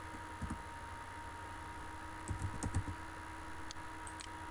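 A few scattered computer keyboard and mouse clicks, with a small quick cluster around the middle, over a faint steady electrical hum.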